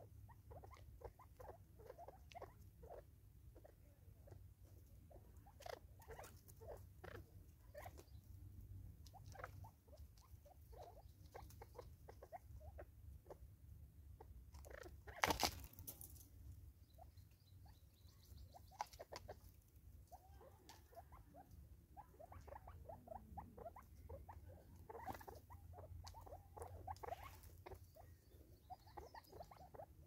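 Francolins pecking seed on a wooden stump and at a plastic bottle feeder: faint, rapid, irregular taps and ticks of beaks on wood and plastic, with one sharper knock midway.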